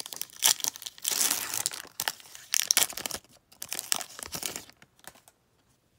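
Foil-lined trading-card booster pack wrapper being torn open and crinkled as the cards are pulled out, a run of irregular crackles that stops about five seconds in.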